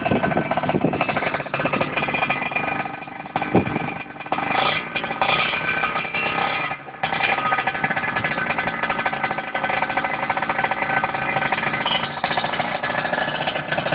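Sport motorcycle engine running steadily with the bike standing still.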